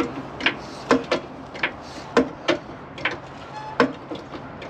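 A jack being pumped to lift the front of a van, its handle and mechanism clanking in a steady rhythm of about two to three strokes a second, with a brief squeak about three and a half seconds in.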